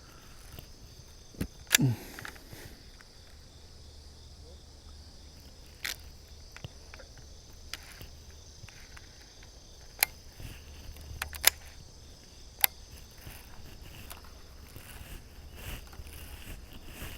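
Crickets chirring steadily in a high, even drone, with a handful of sharp clicks scattered through, the loudest about ten and eleven and a half seconds in.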